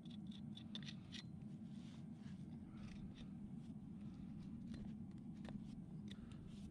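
Hoof knife paring and scraping the sole of a horse's front hoof: a quick run of small cutting ticks near the start, then scattered short scrapes.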